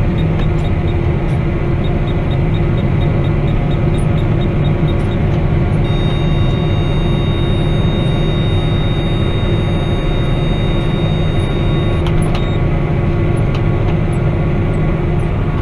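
Claas Axion 850 tractor's six-cylinder diesel engine running steadily, heard from inside the cab. A thin high whine joins for about six seconds midway and stops with a click.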